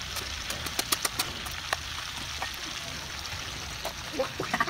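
A cleaver chopping into the husk of a green coconut: a quick run of sharp knocks about a second in, then a few scattered single strikes, over a steady background hiss.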